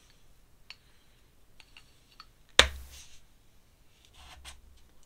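Handling of an ink brush and ink bottle: a few light clicks, one sharp knock about halfway through, then a brief scratch of the brush stroking across paper near the end.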